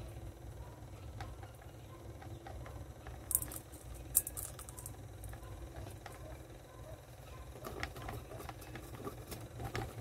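Small scratching and clicking of a long-handled tool working soil and stones inside a glass bowl terrarium, with two sharper ticks around three and four seconds in, over a steady low hum.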